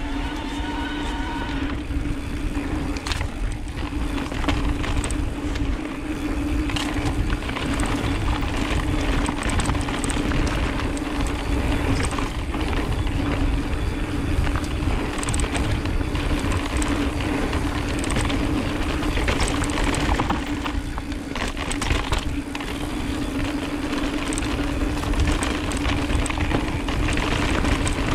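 Mountain e-bike riding along a dirt singletrack: steady wind and trail rumble, with frequent rattles and knocks from the bike over rough ground and a constant low hum underneath.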